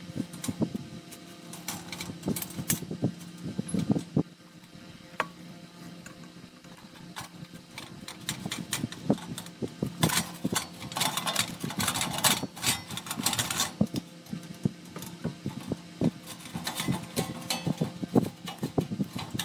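Hands fitting a replacement attic exhaust fan motor into the fan and its sheet-metal housing: repeated small metallic clicks and knocks of handling. About ten seconds in comes a denser stretch of scraping and rustling that lasts about four seconds.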